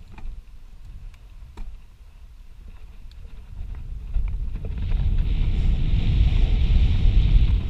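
Mountain bike riding down a dirt trail: tyres rolling over the ground and wind buffeting the microphone, with light clicks and rattles. The rumble and hiss grow louder from about halfway as the bike picks up speed.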